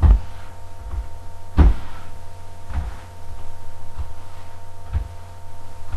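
A broom sweeping up spilled noodles, knocking on the floor in a handful of irregular dull thumps with some brushing, over a steady electrical hum.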